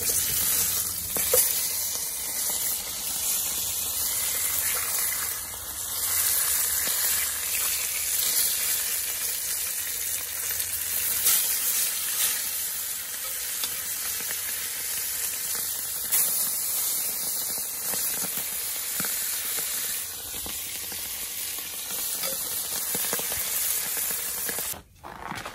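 Salmon head pieces frying in hot oil in a frying pan: a steady sizzle with a few sharp crackles as the pieces are turned with tongs. It cuts off suddenly near the end.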